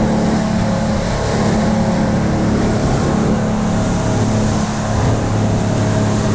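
Motorboat engine running at speed with a steady drone, over a constant rush of spray, wind and water along the hull.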